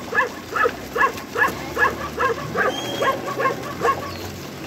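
An animal calling in a run of short, pitched cries, about two or three a second.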